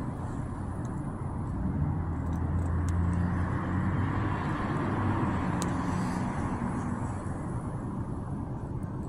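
Low engine rumble of a vehicle going by, swelling for a few seconds and then fading away.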